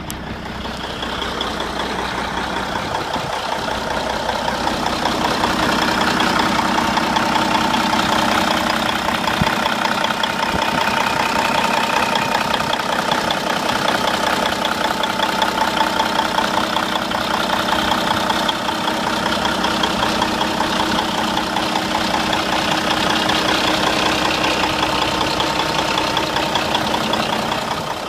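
Cummins N14 inline-six diesel engine idling steadily, growing louder over the first few seconds as the engine bay is approached.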